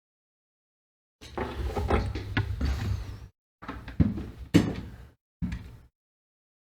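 Handling noise from a repair bench: three bursts of small clicks, knocks and rustling, with the sharpest knock about four and a half seconds in.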